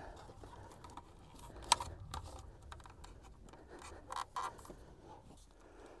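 Faint handling noise of electrical cable and an outlet box: scattered light clicks and rustling, with one sharp click a little under two seconds in and two more close together about four seconds in.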